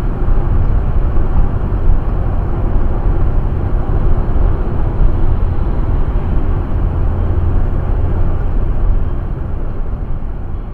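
Audi A6 3.0 TDI Quattro cruising at motorway speed, heard from inside the cabin: a steady, loud low rumble of tyres on the road with engine and wind noise, easing off slightly near the end.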